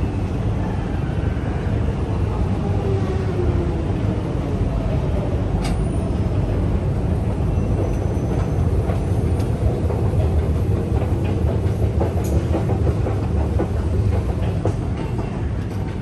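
Steady low mechanical rumble inside a London Underground station, with a faint falling whine about two to four seconds in and a few light clicks.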